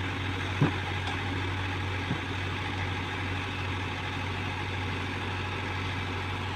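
Heavy diesel engine idling steadily, a constant low hum, with a couple of faint knocks early on.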